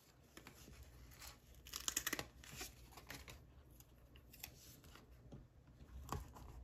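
Paper and plastic rustling and crinkling with short tearing sounds as budget envelopes and sticker labels are handled, loudest in a cluster about two seconds in.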